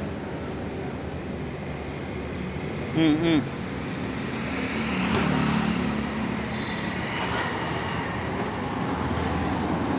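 Steady outdoor background noise like distant road traffic, swelling briefly about halfway through. About three seconds in comes a short, loud, wavering pitched sound in two parts.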